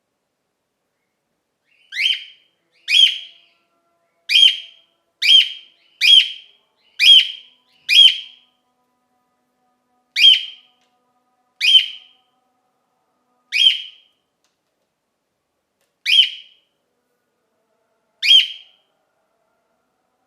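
Male cockatiel's flock call: about a dozen short, high-pitched calls, starting about two seconds in. They come roughly once a second at first, then slow to one every two seconds or so.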